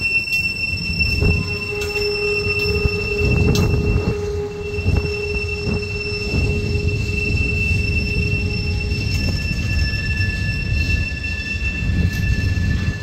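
Freight train boxcars rolling past with a steady low rumble and occasional knocks, over which the wheels give several steady high-pitched squeals. One squeal fades out past the middle and another, at a different pitch, starts soon after.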